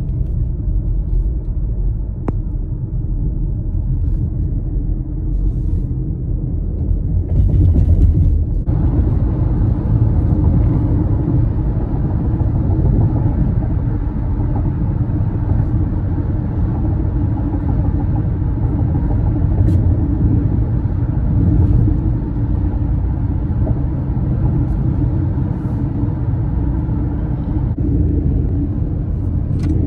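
Car road noise heard from inside the cabin while driving: a steady low rumble of tyres and engine that grows louder and fuller about eight seconds in.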